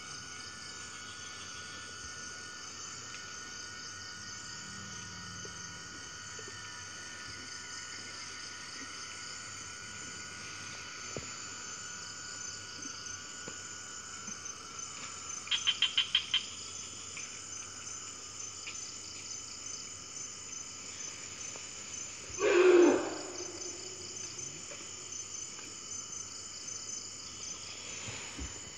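Steady rainforest insect chorus of crickets and cicadas, with a quick run of about eight sharp chirps around the middle. About two-thirds of the way through, a Bornean elephant gives one short, loud trumpet call lasting under a second.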